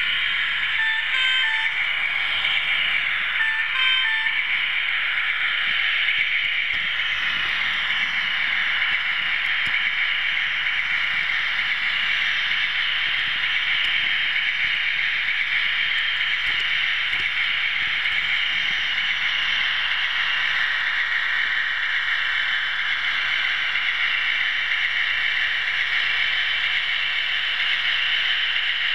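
Steady whirring rattle of an OO-gauge model train running along the track, its small motor, gears and wheels heard close from the camera riding on the train. A few short pitched notes sound between about one and four seconds in.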